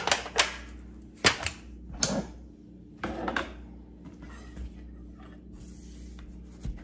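Kitchen handling noises: a disposable aluminium foil pan, a knife and a cutting board being handled, with several sharp clacks and crinkles in the first three and a half seconds, then only faint light rustling.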